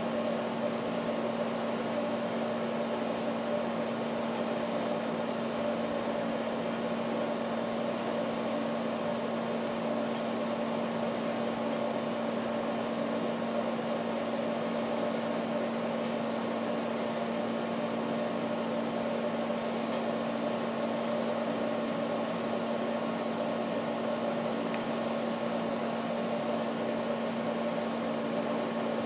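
Steady hum of a running machine, with a low drone and a higher whine held at fixed pitch.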